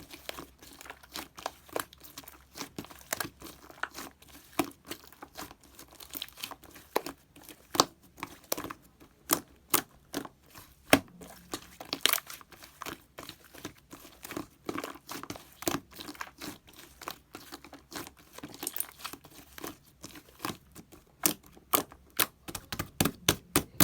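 Sky-blue slime being handled with the hands: a steady, irregular run of sharp clicks and crackles as it is pressed, stretched and folded, coming faster near the end.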